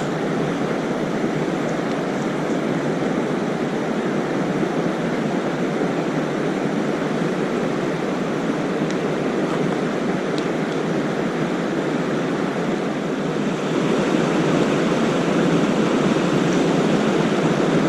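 Steady rushing of flowing river water, an even continuous noise that grows a little louder about fourteen seconds in.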